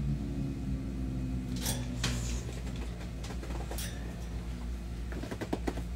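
A steady low hum with a few scattered knocks and clicks, and a cluster of quick taps near the end, as someone handles things off camera.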